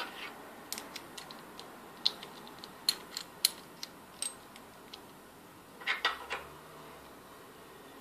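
Small metal parts of an aviation-style circular connector clicking and scraping as they are handled and fitted together by hand: scattered irregular clicks, with a brief cluster of scraping about six seconds in.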